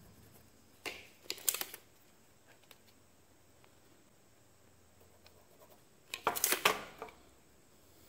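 Workbench handling noise from a cherry burl pen blank, a pencil and a tape measure. Two short bursts of clattering and scraping come about a second in and again about six seconds in, with faint ticks between them.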